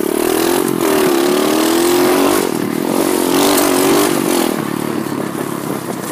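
SSR 125cc pit bike's single-cylinder four-stroke engine running under throttle at fairly steady revs, its note wavering slightly, then dropping away about four and a half seconds in as the throttle eases off.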